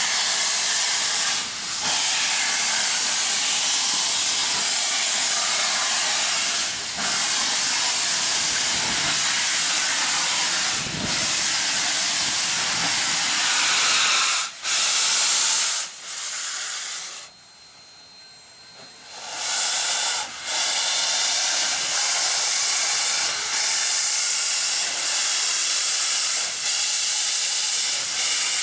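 Union Pacific 844, a 4-8-4 steam locomotive, venting steam in a loud, steady hiss. Just past the middle the hiss drops away for about two seconds, then comes back at full strength.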